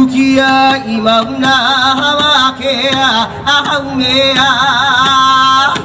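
Hawaiian chant accompanying hula: a single voice holding long notes, the held tones wavering in a vibrato.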